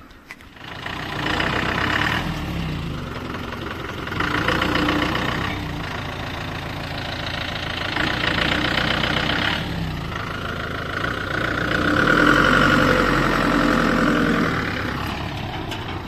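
Goods truck's engine starting up about a second in, then running with its revs rising and falling several times, loudest near the end.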